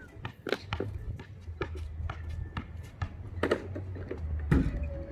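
Basketball being dribbled on asphalt: sharp bounces about two a second, then a louder knock near the end as the ball is shot at the hoop.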